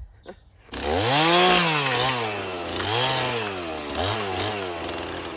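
Gas chainsaw engine revved up and down about four times, each rise quick and each fall slower.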